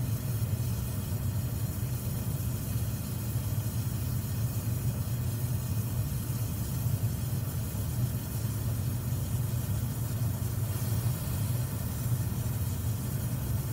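Oxy-acetylene torch burning steadily, a low even rumble with a hiss above it, as it melts a silver charge in a crucible. The flame is set slightly rich with extra acetylene.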